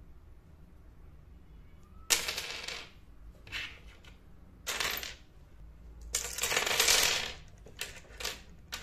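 Miniature ceramic plates clinking and clattering as they are set down on a wooden tabletop and against one another. The clinks start about two seconds in and come in several short runs; the longest and loudest clatter is about six to seven seconds in.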